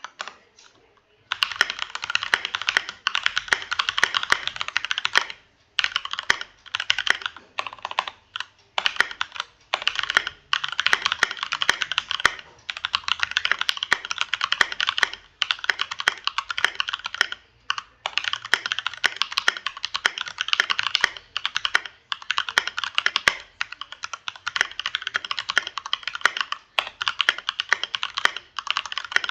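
Keychron K2 V2 mechanical keyboard being typed on fast: a dense run of key clicks that starts about a second in and comes in bursts broken by short pauses.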